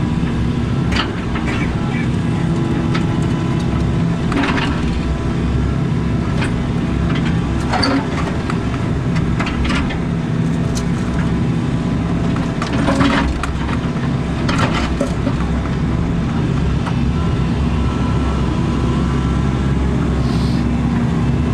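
Excavator's diesel engine running steadily under load, with about half a dozen sharp cracks and knocks spread through it as the bucket breaks up and drags out pieces of a thick concrete slab.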